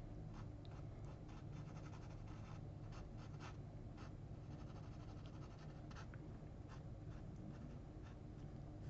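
Fine-tip pen scratching on drawing paper in many short, quick strokes while inking in small details, faint, over a steady low hum.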